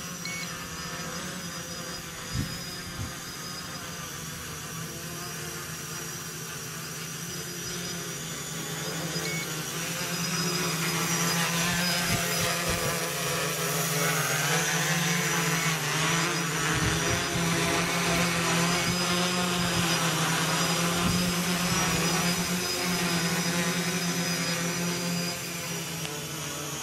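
A small quadcopter's electric motors and propellers buzz steadily in flight. The buzz grows louder from about ten seconds in, and its pitch wavers up and down as the craft is trimmed and manoeuvred.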